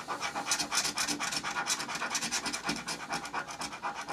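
Scratch-off lottery ticket being scratched, its coating scraped away in quick, repeated strokes to reveal the winning numbers.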